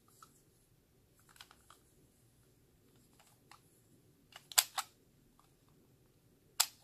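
Hard plastic clicks from a toy Kamen Rider Eyecon being handled and its mechanism pressed. A few faint clicks come early, a loud cluster of three or four about halfway through, and one more sharp click near the end.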